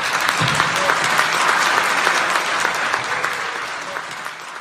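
Audience applauding in a theatre, the clapping swelling about half a second in and then fading slowly toward the end.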